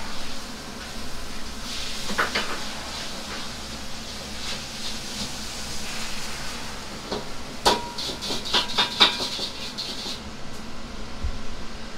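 Steady hiss of a commercial kitchen, with a quick run of sharp clinks about two-thirds of the way through, one of them ringing briefly like metal or crockery being knocked.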